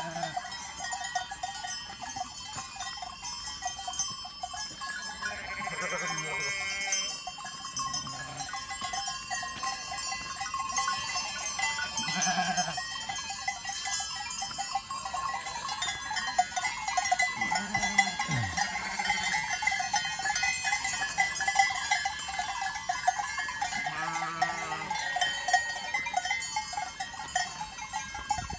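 Many livestock bells clanking and ringing without a break, as a herd of bell-wearing animals grazes. A few short animal calls rise above them now and then, one a low call that falls in pitch about 18 seconds in.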